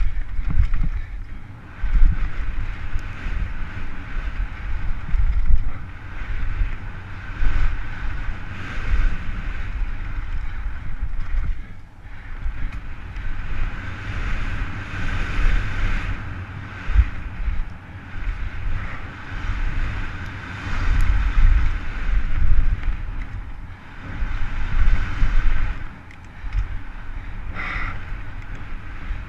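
Wind rushing over a helmet-mounted camera's microphone as a downhill mountain bike speeds down a rough dirt trail, with a constant low rumble and rattle from the bike over the bumps. The rush swells and fades every few seconds.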